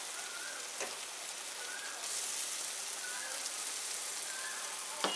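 Spiced onion masala sizzling in hot oil in a pan, a steady frying hiss that grows louder about two seconds in as fried boiled eggs go into it.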